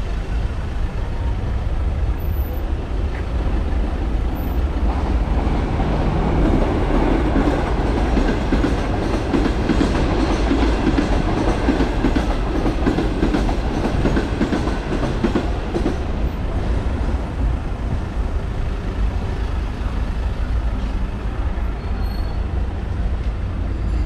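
A train crossing the brick railway viaduct, loudest from about six to sixteen seconds in, over a steady low rumble of traffic.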